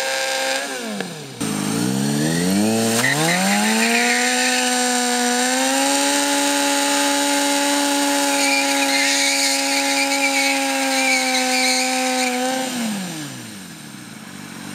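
2005 Kawasaki ZX-6R 636's inline-four engine through a Jardine aftermarket exhaust, revved hard during a rear-tyre burnout. It is held at high revs, drops sharply about a second in, climbs back and holds steady for about eight seconds, then falls back to idle near the end.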